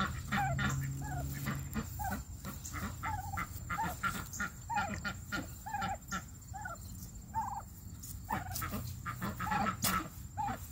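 Domestic white meat turkeys giving short, soft, chirping calls, roughly one or two a second, with scattered light clicks.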